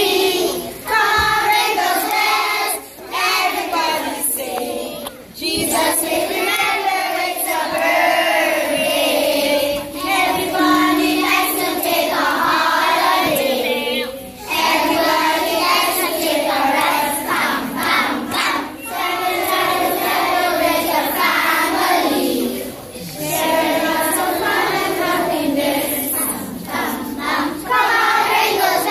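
A choir of young children singing a Christmas carol together, phrase after phrase, with short breaks between the lines.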